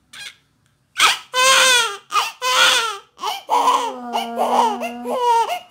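Newborn baby crying: two short cries, then a run of loud wails from about a second in.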